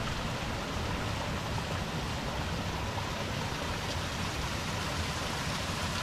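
Steady rush of a creek's flowing water, an even hiss with no breaks.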